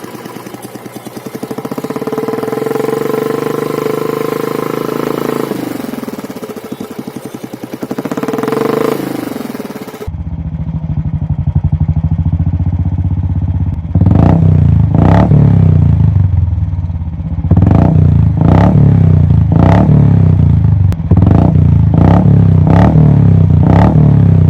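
Royal Enfield motorcycle running through an aftermarket performance exhaust: the engine is revved up, held, eased off and revved again. Then, after a sudden change to a deeper, louder idle, the throttle is blipped repeatedly in quick, sharp bursts.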